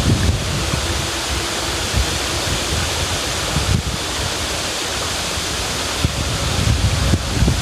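River water rushing and splashing steadily, with a low rumble that swells and eases and a few faint knocks.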